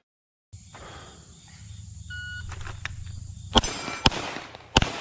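An electronic shot timer gives one short beep. About a second and a half later a Gen 5 Glock 34 9mm pistol fires three shots, roughly half a second apart.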